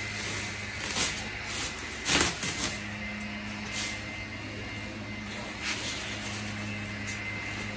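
Clear plastic wrapping rustling and crinkling as it is pulled off a boxed wheel, in several short bursts, the loudest about two seconds in. A steady low hum runs underneath.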